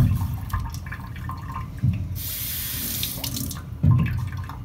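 Water running from a tap for about a second and a half, rinsing a Norton 8K waterstone just lapped flat with a diamond plate. A few dull knocks come before and after it.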